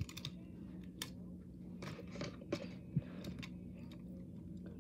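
Diecast stock-car models being handled and set down side by side: a few light clicks and taps with soft rustles, over a faint steady hum.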